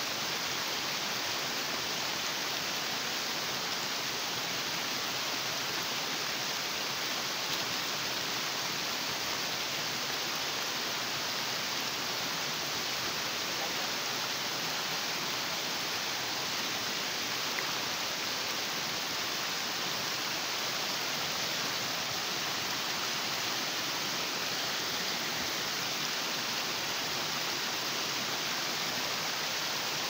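Shallow stream flowing in small cascades over sloping rocks: a steady, unchanging rush of water.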